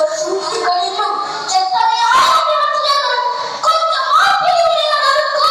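A high voice singing a melody, with held notes that glide up and down.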